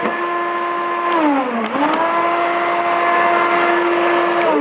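Wet/dry shop vac motor running with a steady high whine. About a second in its pitch sags and climbs back up, and near the end it is switched off and winds down with a falling whine.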